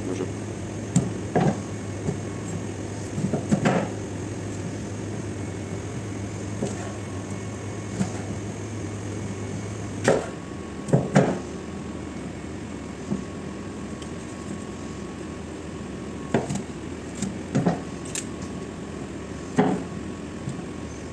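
Scattered knocks and clinks of kitchen utensils as cooked chicken is shredded, several seconds apart, over a steady low hum that stops about halfway through.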